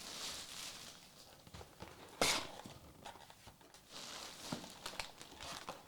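Faint handling sounds of trading cards and their packaging on a table: soft scattered clicks and rustles, with one sharper tap about two seconds in.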